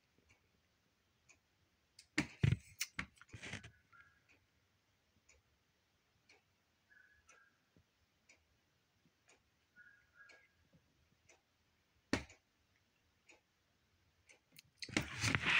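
A clock ticking faintly about once a second. A few louder knocks and taps come about two to three seconds in, and a loud burst of rustling starts near the end.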